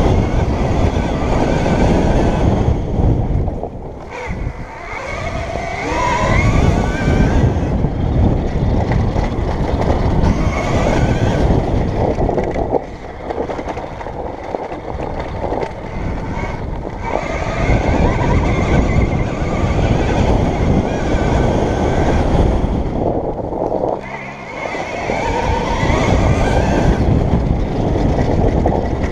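KTM Freeride E electric dirt bike ridden over a rough grass-and-dirt track: wind buffeting the helmet microphone and the rumble of the bike over the ground, with the electric motor's whine rising as it accelerates. The noise eases off briefly three times as the bike slows, then builds again.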